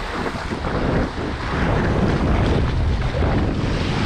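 Wind buffeting the microphone over the wash of sea waves, a steady loud rush with a gusty low rumble.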